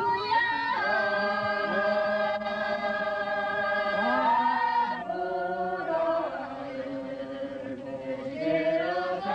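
Chant-like singing in long, held notes, sliding to a new pitch every two or three seconds.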